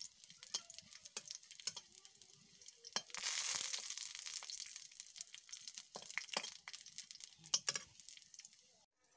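Small dry fish frying in hot oil in a wok, crackling with many short ticks. About three seconds in, a louder sizzle starts suddenly and fades away over the following seconds.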